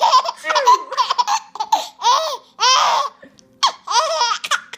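A baby boy laughing hard in a string of short, high-pitched bursts, with brief breaks between them.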